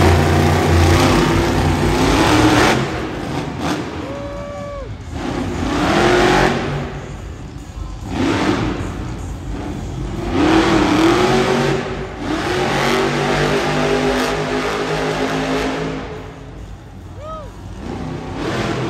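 Monster truck engines revving in the arena, loud and rising and falling in repeated swells every few seconds as the trucks drive and rev.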